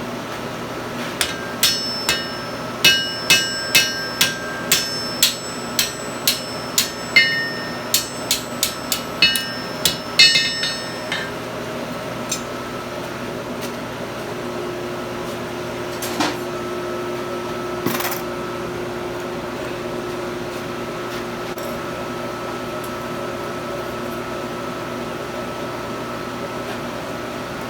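Hand hammer striking steel on an anvil, about twenty ringing blows at an uneven pace. The blows stop about eleven seconds in. A steady hum carries on under it, with one or two lone clinks later.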